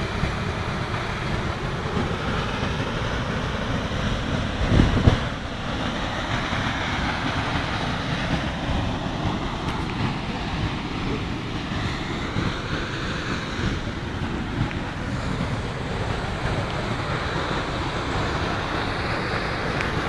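Steady rush of a tall waterfall in heavy monsoon flow, with a short gust of wind buffeting the microphone about five seconds in.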